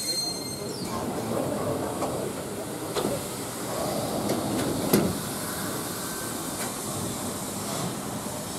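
A passenger train starting away, heard from an open carriage window: steady rolling and running noise with a hiss, and two sharp knocks, the louder one about five seconds in.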